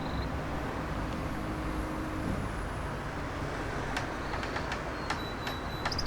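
Steady outdoor background rumble like distant road traffic, with a few faint high ticks and chirps near the end.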